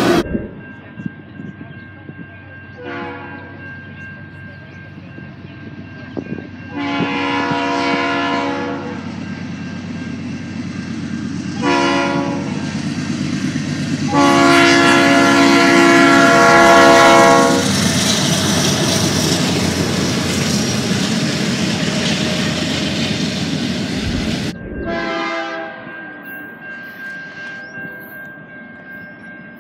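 Freight diesel locomotive horns blowing five times, three short blasts and two long ones, the longest about three seconds, over the rumble and wheel clatter of passing freight trains that swells in the middle.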